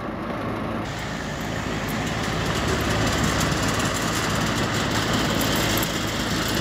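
Goodman AC condenser unit running with a steady low electrical hum and whir, growing a little louder about two seconds in. The compressor is trying to start and failing to run.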